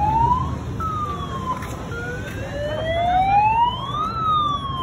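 An emergency vehicle's wailing siren, its pitch rising slowly over a couple of seconds to a peak about four seconds in and then falling, over a low background rumble.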